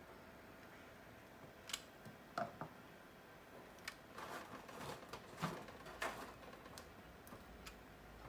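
Plastic lamp housing parts being handled and fitted together: scattered clicks, taps and short scrapes, beginning a couple of seconds in.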